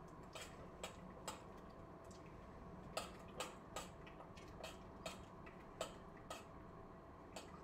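A metal spoon is clicking against the side of a saucepan as sauce is stirred: faint, irregular light ticks, roughly two a second, over a faint steady hum.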